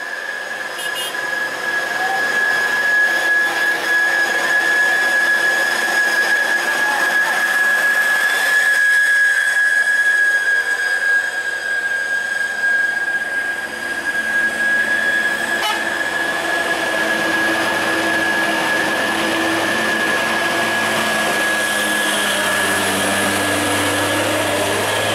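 Truck engines labouring up a steep hairpin bend, a heavy truck's low engine note growing louder over the last several seconds as it comes close, all under a steady high-pitched whine.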